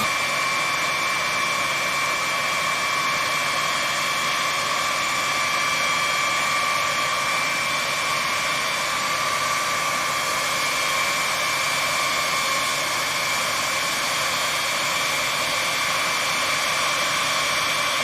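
B-52H Stratofortress jet engines (Pratt & Whitney TF33 turbofans) running steadily on the ground: a high, even whine over a loud rushing hiss, with no change in pitch.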